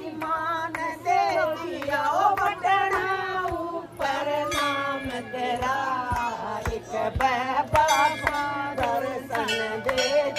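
Hindi devotional bhajan sung by women's voices, a wavering melodic line carried along with sharp, regular hand-claps or drum strokes keeping the beat.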